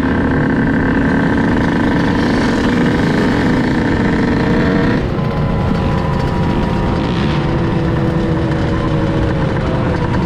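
Off-road engine running at a steady cruise, with wind rush underneath. About five seconds in, the engine note drops and then eases slowly lower.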